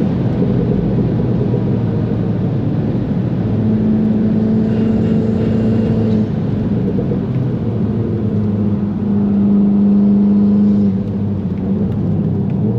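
VW Golf 7 GTI's turbocharged 2.0-litre four-cylinder heard from inside the cabin, running hard at high speed. The engine note drops about six seconds in and again near the end as the car slows for a corner.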